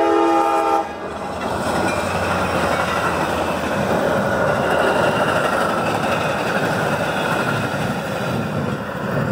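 Metra commuter train's horn sounding a chord of several tones, which cuts off under a second in, followed by the train rushing past with a loud, steady noise of wheels on the rails.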